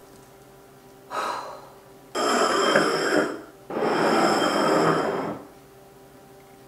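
A woman's breath: a short breathy sound, then two long, loud breathy exhales or blows.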